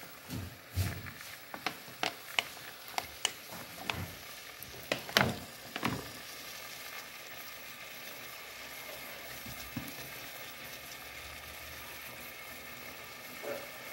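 Raw chicken pieces in an aluminium pot starting to fry as cooking oil goes in: a run of sharp pops and crackles over the first six seconds, then a steady faint sizzle.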